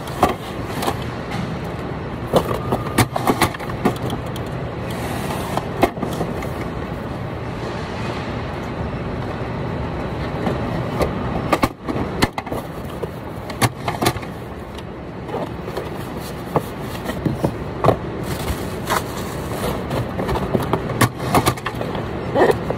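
Steady hum of warehouse machinery, with irregular clicks, knocks and scrapes of a cardboard box being handled and folded on a packing table.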